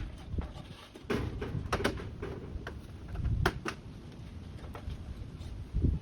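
Irregular knocks, clicks and scraping from hands-on work, a few sharp knocks among quieter rustling.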